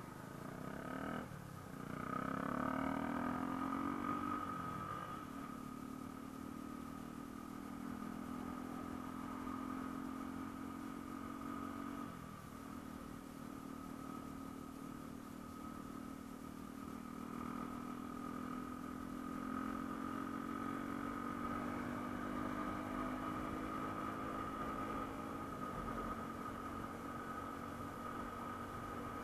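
Yamaha M-Slaz motorcycle's single-cylinder engine running under way. Its pitch rises over the first few seconds as it accelerates, then holds steady at a cruise, sagging briefly twice, near the middle and near the end.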